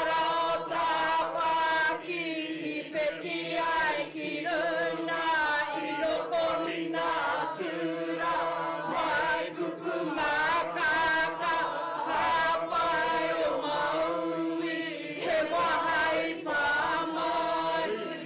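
A group of people singing a Māori waiata together, many voices in unison on a wavering, chant-like melody, in phrases with short breaks between them.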